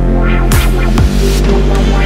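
Loud electronic background music with a heavy, steady bass line and quick downward-sweeping bass hits.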